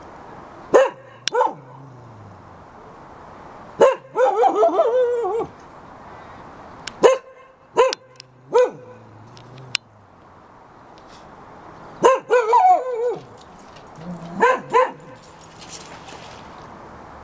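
Dog alarm-barking in short bouts: single barks and quick runs of yelping barks, five bouts with pauses between.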